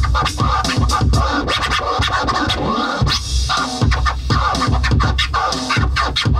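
Electronic beat with repeated heavy bass hits and record-scratch sounds sweeping up and down in pitch, played on a Native Instruments Maschine pad controller.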